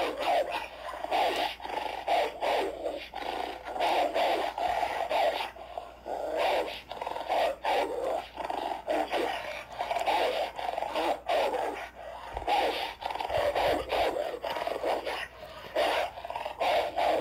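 Dogs snarling and growling in a fight, a continuous run of rapid, choppy snarls.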